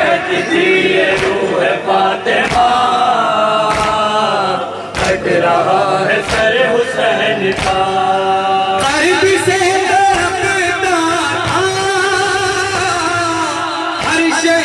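Male voices chanting a noha lament in chorus, a lead singer with a group, over sharp slaps of hand-on-chest beating (matam) that keep a steady beat of about one every second and a quarter.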